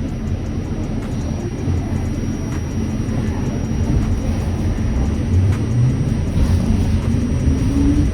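Subway train running, a steady low rumble that grows louder, with a motor whine rising steadily in pitch in the second half as the train picks up speed.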